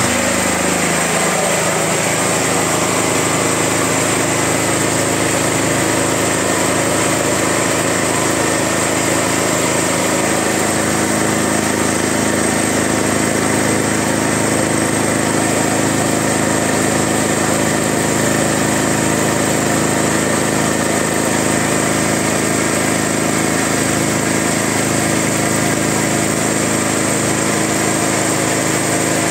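Huter petrol generator's engine running steadily and loudly at close range. It is fully warmed up after about three-quarters of an hour of continuous running.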